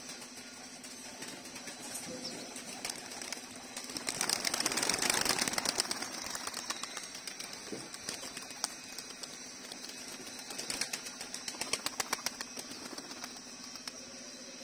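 A flock of domestic pigeons taking off, their wings clattering in a loud burst of rapid flapping about four seconds in, with a second run of quick wing flaps around eleven seconds.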